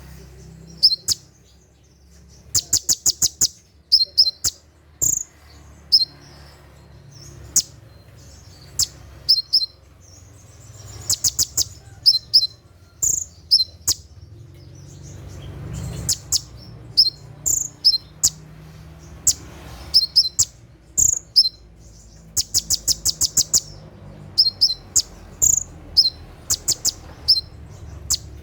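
Olive-backed sunbird (kolibri ninja) calling: sharp, high single chirps scattered throughout, twice breaking into a fast run of about seven or eight rapid notes, the 'tembakan' (shot) call that keepers of this bird prize.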